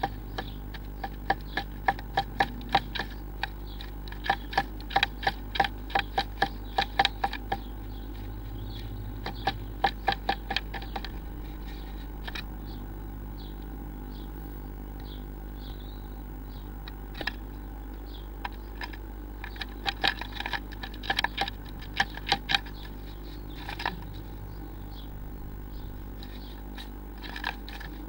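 A blue tit inside a wooden nest box tapping at the wood: bursts of quick, sharp taps, several a second, with pauses between, over a steady low hum.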